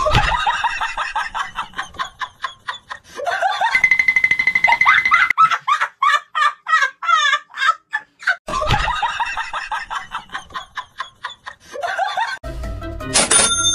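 People laughing hard in rapid pulsing bursts, with music cutting in near the end.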